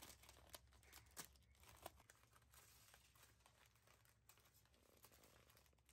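Faint crinkling of aluminium foil squeezed into a ball by a child's hands: scattered soft crackles, thicker in the first couple of seconds, then sparser.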